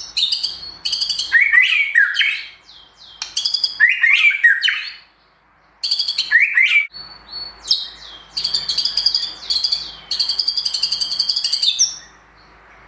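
White-rumped shama (murai batu) singing a loud, varied song of fast trills of repeated notes alternating with swooping whistled phrases, with a pause of about a second near the middle. It is a tutored bird whose song is filled with learned phrases.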